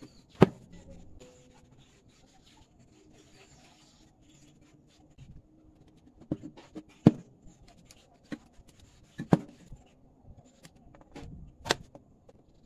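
Handling noise from an amplifier board, its loudspeakers and leads being moved and set down on a tabletop: about six sharp clicks and knocks, spread out with a few seconds between some of them, and quiet rubbing and shuffling in between.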